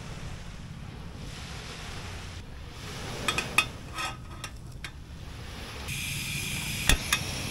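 Wind on the microphone and surf washing on the beach, with a few sharp clicks and knocks in the middle and two more near the end.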